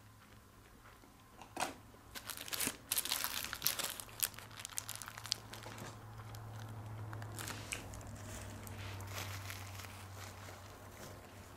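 Paper food wrappers and a small sauce packet crinkling and tearing in the hands, with bites into a fried sandwich, the crackles thickest in the first half. A faint steady low hum runs underneath.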